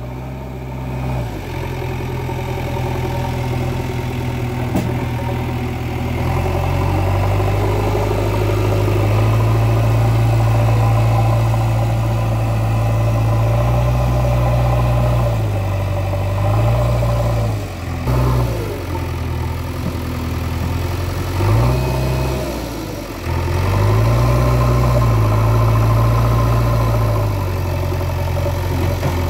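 A JCB 3DX backhoe loader's four-cylinder diesel engine runs steadily under load, its revs dropping and picking up again several times in the second half.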